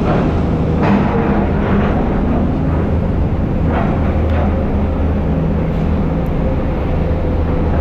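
Vehicle engine running steadily with road noise, heard from aboard while driving through city streets, with a couple of short knocks about a second in and near the middle.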